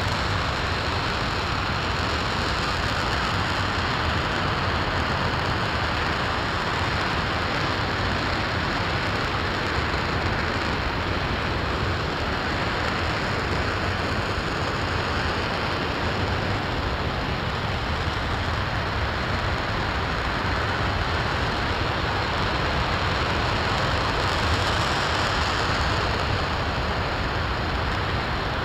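RS-25 liquid-hydrogen/liquid-oxygen rocket engine running in a long hot-fire test: a constant, even rushing noise that holds the same level throughout.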